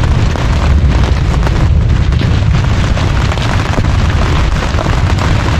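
Torrential rain pelting the roof of a canvas tent during a thunderstorm, a dense crackling patter over a steady deep rumble.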